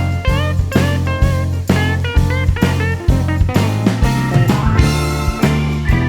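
Music: a guitar-led band track with notes bent upward over a steady drum beat and a heavy bass line.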